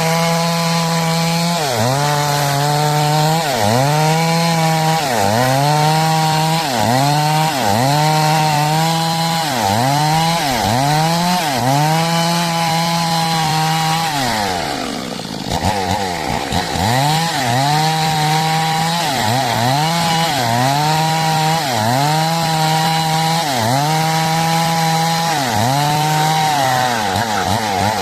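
Stihl MS 382 two-stroke chainsaw cutting lengthwise through a log to make boards. The engine runs near full throttle, its pitch dipping and recovering about once a second as the chain bites into the wood, with a deeper drop under load about halfway through.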